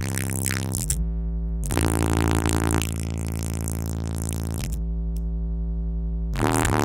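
Synth-bass-heavy music playing through a car audio system of two 18-inch dual 1-ohm subwoofers driven by four Audio Legion AL1600.1D amplifiers, with long sustained deep bass notes. Twice, about a second in and again near the end, the higher parts drop out and only the deep bass notes sound.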